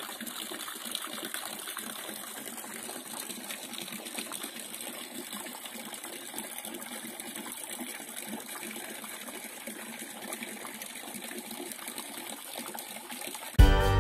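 Steady rushing and splashing of water as a homemade rope pump runs, its rope churning the well water around the submerged pulley. Music cuts in abruptly near the end.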